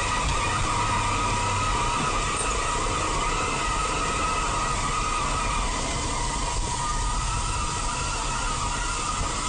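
Steady noise of a moving vehicle as picked up by a dashcam, with a constant whine running through it and no distinct impact.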